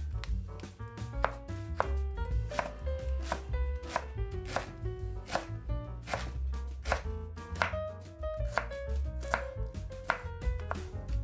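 Kitchen knife shredding a head of white cabbage on a bamboo cutting board: a steady run of sharp knife strikes on the board, the loudest about every 0.7 s with lighter cuts between. Soft background music plays underneath.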